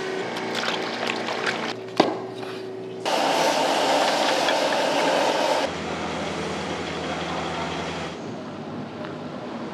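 Kitchen cooking sounds that change abruptly at each cut: light clinks and a sharp knock about two seconds in, then a loud hiss and sizzle from a wok on a gas burner as broth is poured in, cutting about six seconds in to a low steady hum that stops about two seconds later.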